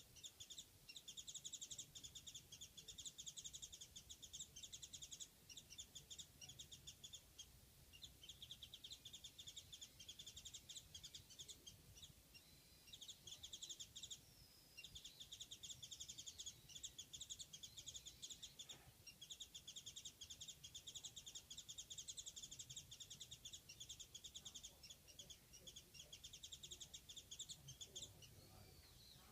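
Japanese white-eye calling: faint, long runs of fast, high twittering notes in phrases a second or two long, with short gaps between them.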